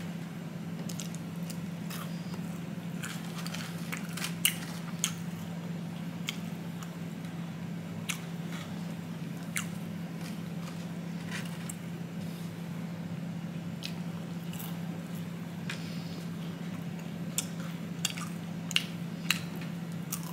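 Close-mic eating sounds: fried chicken being bitten and chewed, with scattered sharp crunches and mouth clicks, the loudest about four seconds in and again near the end, over a steady low hum.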